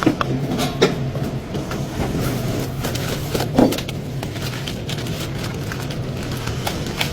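A car engine runs with a steady low hum, with scattered short metal clicks and knocks. There is a louder knock about a second in and another about three and a half seconds in.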